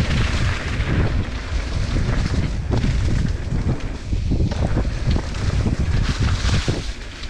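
Mountain bike descending a dirt trail at speed: heavy wind noise on the microphone over the rolling of knobby tyres on dirt and leaf litter, with the bike rattling over bumps in many short knocks.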